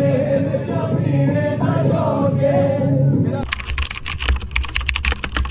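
Background music with singing that cuts off about three and a half seconds in, giving way to a rapid run of sharp, typing-like clicks over a low rumble.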